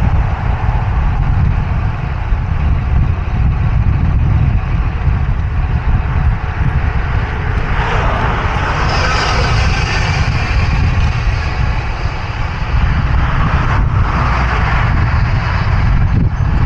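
Wind rumbling on the microphone of a cyclist's action camera, with two motor vehicles passing at highway speed on a busy highway: one swells and fades about eight seconds in, another near the end.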